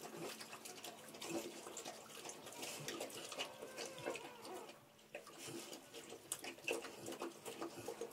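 Saint Bernard mother licking a newborn puppy clean just after whelping: an uneven run of wet licking and smacking sounds.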